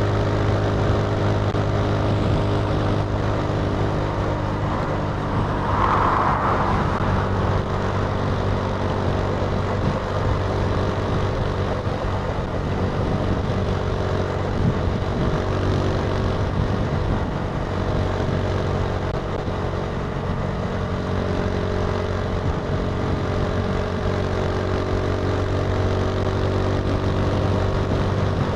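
Italika TC300 motorcycle engine running at a steady speed while riding, a constant low hum with road noise. A brief higher-pitched sound stands out about six seconds in.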